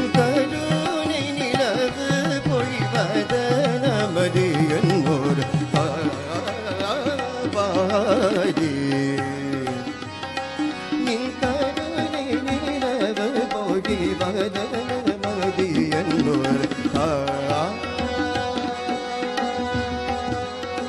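Carnatic music in raga Mohanam: a melody with constantly gliding, ornamented pitches over hand-drum accompaniment.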